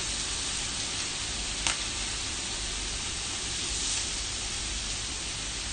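Sliced pork belly and hot dogs sizzling on an electric grill plate: a steady hiss, with one short click about a second and a half in.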